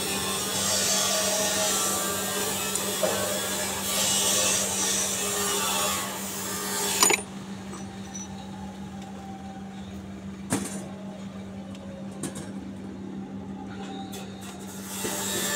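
Handling noise from rusty bolts and metal parts: rubbing and scraping for the first half, a sharp click about seven seconds in, then quieter with a single knock a few seconds later, over a steady low hum.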